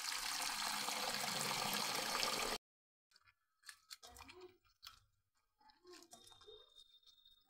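Tap water running into a stainless steel bowl, a loud steady rush that stops abruptly after about two and a half seconds. Then a hand squeezes and stirs the soaked food in the water, giving scattered soft wet squelches.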